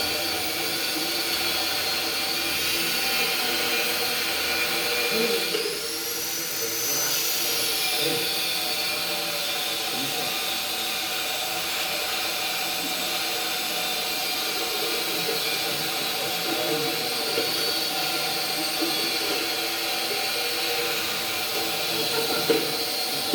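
A machine's motor running steadily with a high whine, which rises in pitch about six seconds in and settles back down two seconds later.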